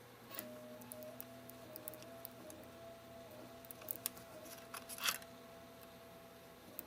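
Faint scratching and small clicks of a spudger prying an adhesive-backed display ribbon cable up off an iPod Touch logic board, with a short louder scrape about five seconds in.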